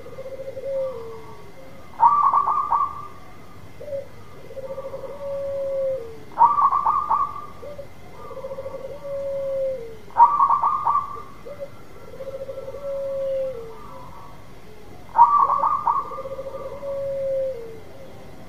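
Zebra dove (perkutut) cooing its song four times, about every four seconds: each phrase opens with a quick rattle of notes and ends in a long, lower coo that drops away at the end.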